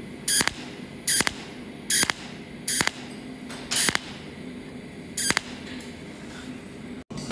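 Cold welding machine (a pulsed TIG spot welder) firing six short arc pulses, roughly one a second, each a brief buzz, while filler wire is added to repair a seam. The pulses stop about five seconds in. A faint steady hum runs underneath.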